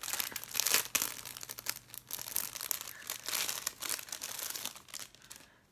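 Clear plastic bag crinkling and crackling in irregular rustles as it is handled and pulled open, dying away near the end.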